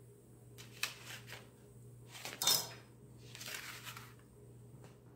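A few light clicks of a table knife and wooden skewer against a plate, then a louder short scrape about two and a half seconds in and a softer one a second later, as a chunk of fried mackerel is worked onto the skewer.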